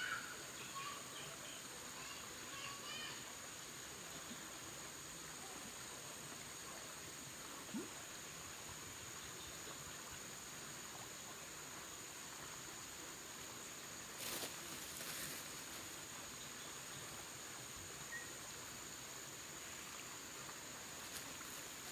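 Outdoor fishpond ambience: a steady high-pitched insect drone, with a few bird chirps in the first three seconds and two brief rustling noises about two-thirds of the way through.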